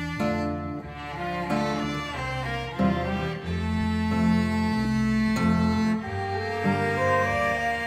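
Violin ensemble with lower bowed strings playing a slow melody in sustained chords.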